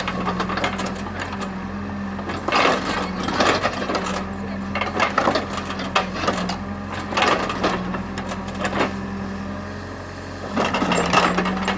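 Cat 432F2 backhoe loader's diesel engine running steadily, with several irregular clanks and scrapes of metal working the ground, one every second or two.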